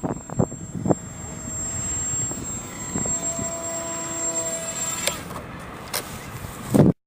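Small RC model plane's motor whining as it flies, over wind and outdoor hiss, with a few sharp clicks. The sound cuts off abruptly near the end.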